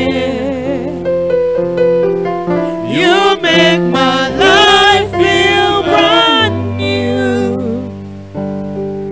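Slow gospel worship song: a voice sings long, wavering, sliding notes over sustained keyboard chords. The singing is strongest in the middle, and the keyboard carries on alone near the end.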